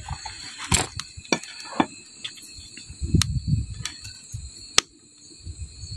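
Earthenware pots, lids and bowls knocking and clinking as they are handled, with several sharp knocks and a few dull thuds, over crickets chirping steadily.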